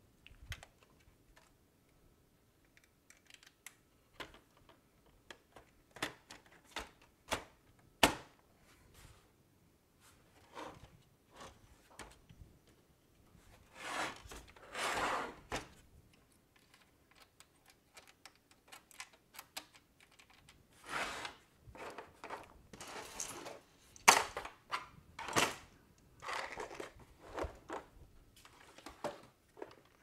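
Hands handling and refitting the parts of an opened PS4 console: scattered clicks and knocks of plastic and metal pieces, with a few longer rustling scrapes, the two longest around the middle.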